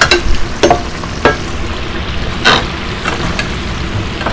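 Breaded chicken pieces sizzling steadily in the hot oil of an open pressure fryer, while a utensil stirs them, giving several short clicks and knocks against the metal; the sharpest comes about two and a half seconds in.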